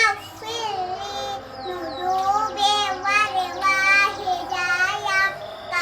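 A young child singing a children's song in a high voice.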